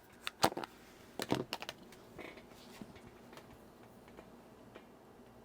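Small sharp clicks and taps of handling watch parts and tools: a cluster of clicks in the first two seconds, then a few faint ticks.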